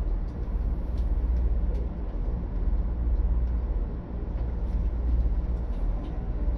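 Diesel railcar's engine running steadily, heard from inside the car as a low hum, with a few faint clicks.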